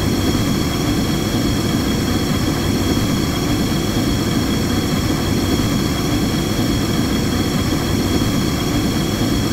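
Gas-powered burner burning gas, a steady continuous rushing noise strongest in the low range, with a few faint steady high tones over it.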